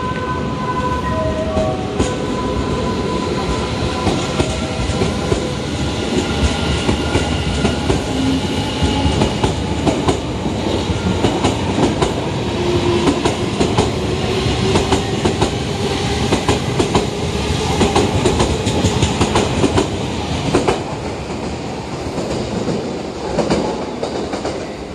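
Odakyu 60000 series MSE Romancecar electric train pulling out and running close past, its wheels clicking over the rail joints, with the last notes of its musical horn at the very start. The sound eases off near the end as the train draws away.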